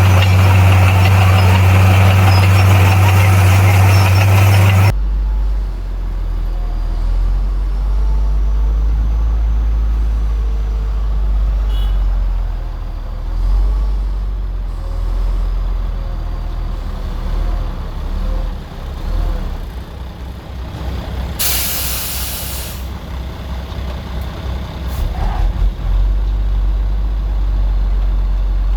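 Heavy diesel machinery engine running loud with a strong low hum. About five seconds in it changes abruptly to a lower, quieter rumble. About two-thirds of the way through there is a sharp hiss of released air lasting about a second and a half.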